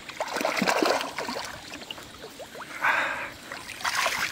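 A hooked small carp thrashing and splashing at the water's surface close to the bank as it is drawn to the landing net. The splashes come in a burst at the start and again near the end, with a short hiss about three seconds in.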